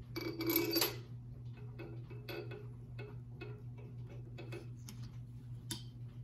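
Hand ratchet clicking in short runs as head bolts are turned down into the cylinder head of a Chrysler 360 LA V8, with a louder metallic rattle of tools near the start.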